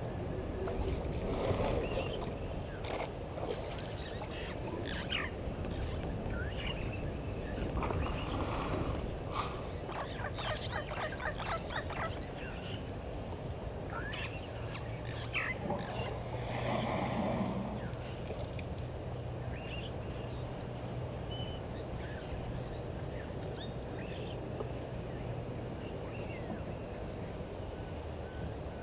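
Evening waterhole ambience: frogs and birds give short scattered calls over a steady high insect chirping. Three louder rushing swells come about a second in, around eight seconds and around sixteen seconds, as an African elephant drinks, squirting water from its trunk into its mouth.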